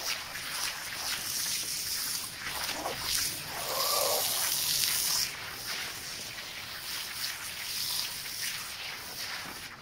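A wet rug being washed by hand: a steady wet hiss of scrubbing and water working over the soaked pile, with repeated strokes and a louder stretch about halfway through.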